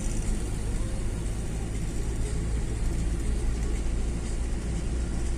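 Steady low rumble of a moving road vehicle: engine and tyre noise on a winding ghat road.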